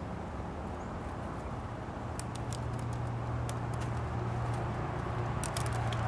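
A distant engine hums steadily and grows slowly louder, with a few faint clicks over it.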